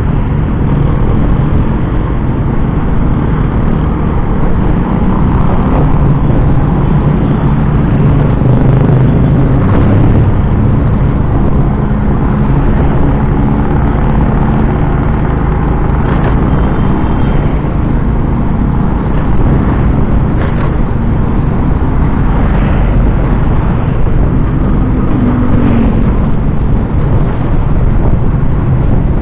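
Small motorbike's engine running steadily under way, with road and traffic noise around it.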